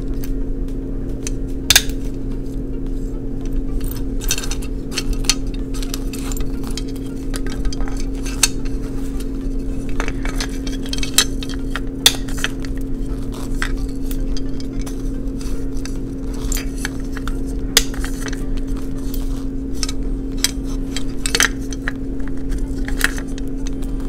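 Scattered light clicks and knocks of hard plastic as an opened Blythe doll head is handled and its eye mechanism worked by the pull string; the mechanism is sticking, its T-bar not turning over. A steady hum runs underneath.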